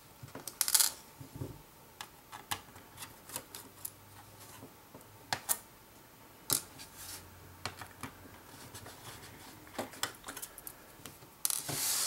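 Scattered small clicks and taps of a precision screwdriver working the pentalobe screws out of a MacBook Air's aluminium bottom case, with the tiny screws handled and set down. A rubbing noise starts just before the end.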